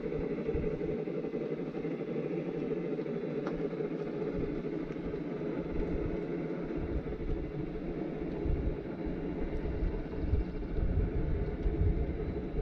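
Garden-scale model log train rolling past on its elevated track: a steady rumble of the cars' wheels running on the rails.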